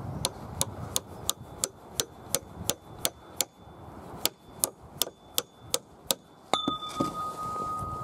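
A hammer striking metal in a steady run of sharp taps, about three a second, with a short pause midway. Near the end a louder clang leaves a sustained metallic ring.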